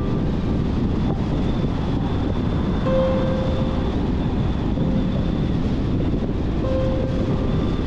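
Car driving along a road: a steady rumble of tyre and wind noise, with a faint whine that comes and goes about three seconds in and again near the end.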